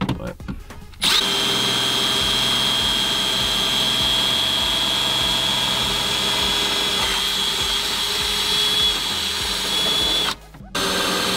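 Milwaukee Fuel cordless rotary tool spinning a cutting wheel into a truck's dash, a steady high whine starting about a second in, with a short stop near the end before it starts again. The wheel is turning slower than it should, so it melts the dash material more than it cuts it.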